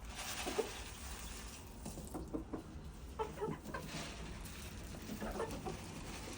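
Hens clucking softly as they feed, many short calls overlapping.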